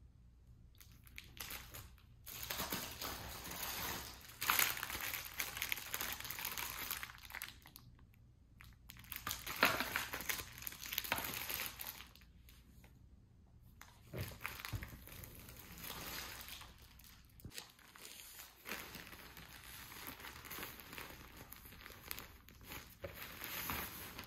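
Clear plastic packaging crinkling as it is handled, in several bursts with short pauses between.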